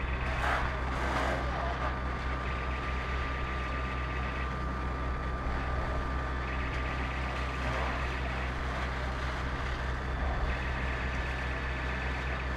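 Fire engine's diesel engine running steadily to drive its pump for the hoses, a low continuous drone. Over it a high electronic tone switches on and off about every two seconds.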